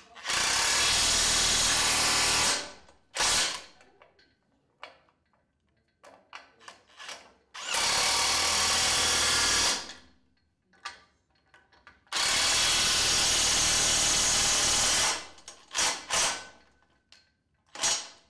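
DeWalt cordless impact wrench running in three bursts of two to three seconds, driving the nuts of a grooved pipe fitting down, with short blips and clicks between. The nuts are being tightened in turn until the fitting's bolt pads meet metal to metal.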